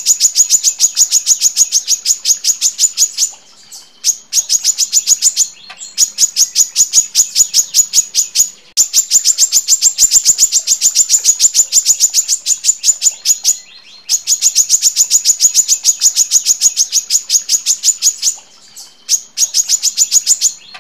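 Female brown-throated sunbird (kolibri kelapa) singing long, rapid runs of sharp, high chirping notes in close succession, the 'long tight shots' prized in a training recording, repeated in about six runs of one to five seconds with short pauses between them.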